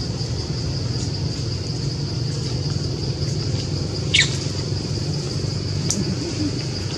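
Two short, high animal squeaks, each falling steeply in pitch, about four and six seconds in, over a steady high insect buzz and a low rumble.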